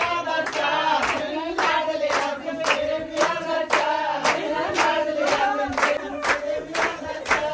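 Group of women singing Punjabi boliyan in unison, with steady rhythmic hand clapping about twice a second, as in giddha.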